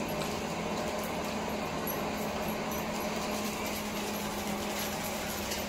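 Steady low hum and even background noise of running machinery.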